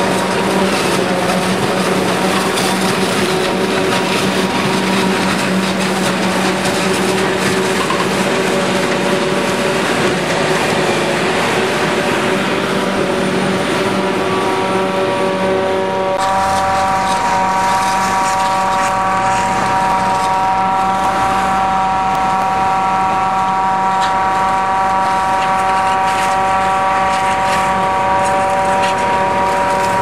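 John Deere 7350 self-propelled forage harvester running under load as it chops standing corn for silage, a steady mechanical drone with a constant hum. About halfway through the sound changes abruptly to a steadier whine made of several high tones.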